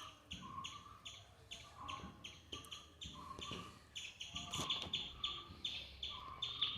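Small cage birds chirping: an even run of short, high chirps, several a second, with lower calls now and then.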